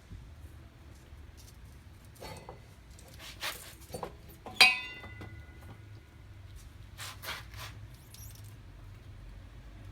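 Scattered clicks and knocks of metal tools being handled while starting work on a motorcycle's front wheel, with one sharp clink about four and a half seconds in that rings on briefly.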